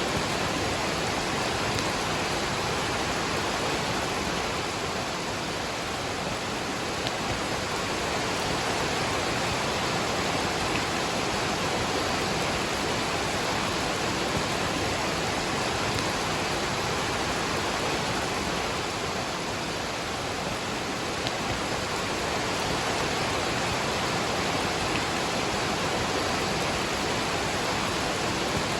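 Waterfall and rain: a steady, even rush of falling water.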